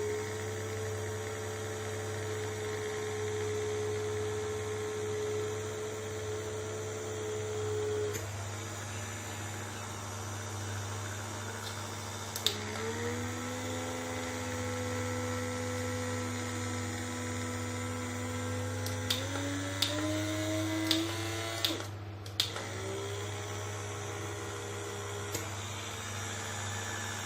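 Small electric pore vacuum (blackhead suction device) motor whining at a steady pitch, stopping about a third of the way in and starting again with a click at a different pitch. It steps up in pitch a few seconds later, as when the suction level is raised, with several sharp clicks near the end over a constant low hum.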